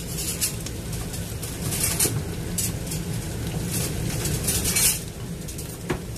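Wooden spatula stirring and scraping minced garlic around a nonstick wok, with a light sizzle of frying oil. The scrapes come as a series of short swishes, the strongest about four to five seconds in, over a steady low hum.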